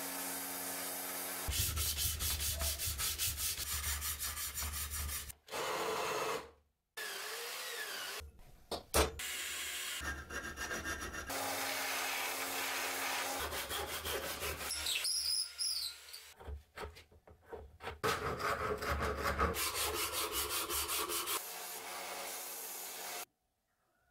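Belt grinder and belt sander grinding and sanding a steel machete blade, in a series of short stretches that start and stop abruptly. One stretch carries a rapid, regular ticking of about six a second.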